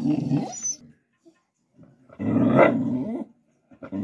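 A dog growls in three bouts, the middle one the loudest: it is growling at its own reflection in a mirror propped behind its food plate.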